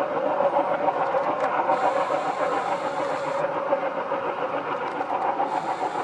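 Double-headed ALCo WDM-3A diesel locomotives chugging steadily as they work a passenger train, their engines under load and putting out black exhaust.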